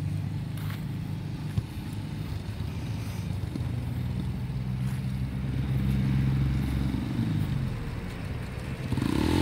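Small manual-clutch motorcycle engine running as a learner rides it, its pitch rising and falling as the throttle is opened and eased. It grows louder near the end as the bike comes closer.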